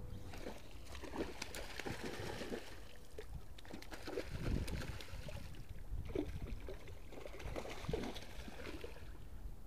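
Small tarpon splashing at the water's surface around a stickbait lure, with several short splashes at irregular intervals.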